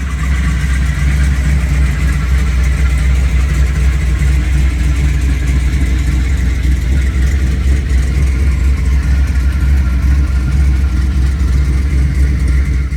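406 small-block Chevy V8 running steadily with a deep, even rumble.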